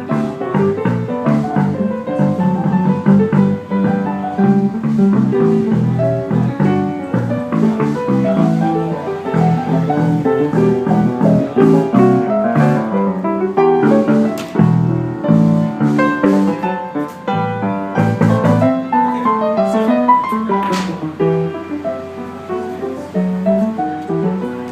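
Piano played fast and busily, a continuous stream of notes and chords.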